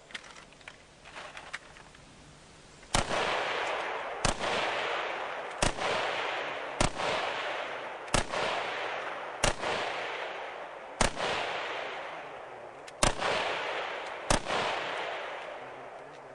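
A run of sharp cracks, about one every second and a half, over a steady hiss that comes in suddenly about three seconds in.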